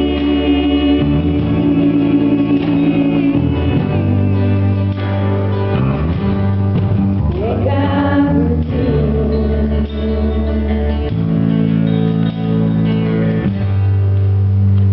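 Gospel-style singing with instrumental accompaniment, held bass notes changing every few seconds under the voices.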